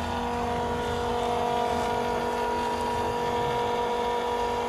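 Electric diesel transfer pump on a mobile fuel tank running steadily with an even whine, pumping diesel through a hose into a combine harvester's tank.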